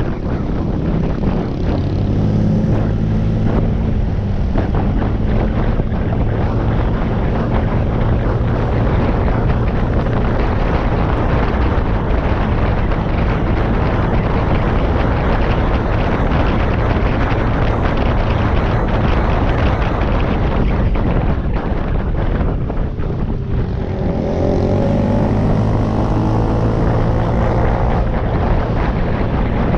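Honda PCX 125 scooter's engine running on the move under heavy wind noise on the microphone. About three-quarters of the way through the sound dips briefly, then the engine note rises as the scooter speeds up again.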